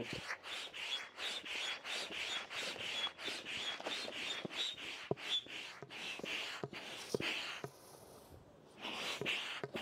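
Hand pump inflating the centre strut of an inflatable foil wing toward 10 PSI: a rhythmic hiss of air with each stroke. The strokes pause briefly near the end and then pick up again.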